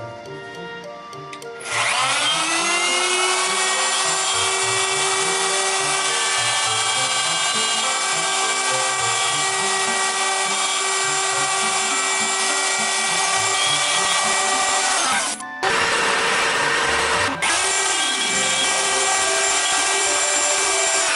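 Wood router spinning up with a rising whine about two seconds in, then running steadily as it cuts a bow-tie inlay pocket in a cedar slab through a template. The sound breaks off briefly twice in the last third. Quiet background music is heard before the router starts.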